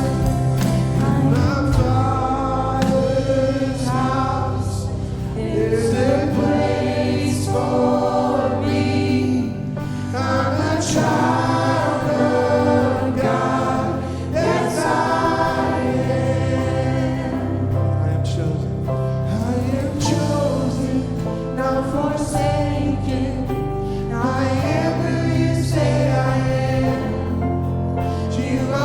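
Church worship music: a contemporary worship song sung by a group of voices over a band, with a steady bass line.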